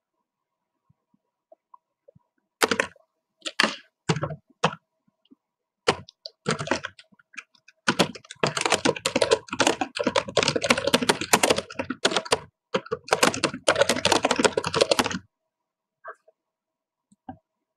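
Typing on a computer keyboard: a few scattered keystrokes, then a rapid run of typing lasting about seven seconds, then two or three single clicks near the end.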